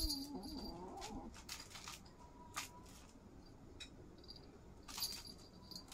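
A cat vocalising with a wavering pitch for about the first second, then only faint scattered clicks as the cats play.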